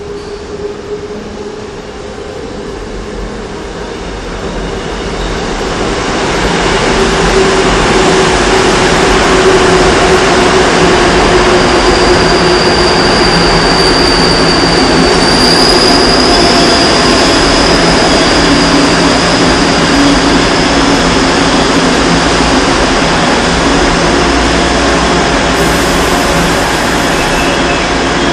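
A Seoul Metro Line 2 old 2000-series electric train pulling into the station and slowing. The running noise grows loud over the first several seconds as the cars arrive, then holds. A high steady squeal sounds through the middle of the arrival, and a lower tone slowly falls in pitch.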